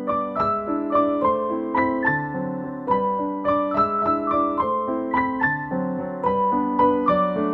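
Background piano music: a gentle melody of single struck notes, a few each second, over lower chords.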